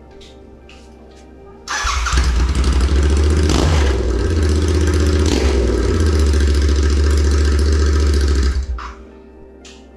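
Royal Enfield Continental GT 650's 648 cc parallel-twin engine started and run with no exhaust silencers fitted, open headers, very loud, for about seven seconds, then shut off near the end. It catches suddenly about two seconds in and dies away over a moment when switched off.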